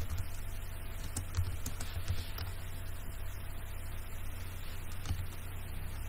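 Keystrokes on a laptop keyboard typing a short terminal command: a quick run of key clicks in the first two and a half seconds, then one more about five seconds in, over a steady low hum.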